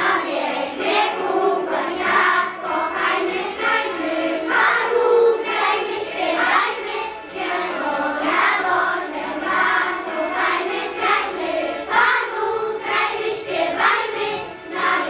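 A group of young preschool children singing together in unison, phrase after phrase.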